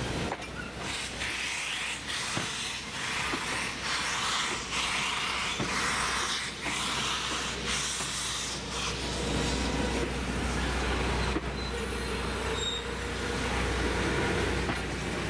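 Tourist passenger train running on the rails, with a rushing hiss over the first half and a steady low rumble that grows stronger in the second half.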